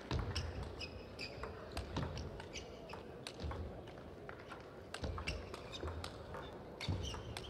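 Table tennis rally: the plastic ball clicking sharply off the rackets and bouncing on the table in a quick, uneven series of knocks, with the hall's echo behind them.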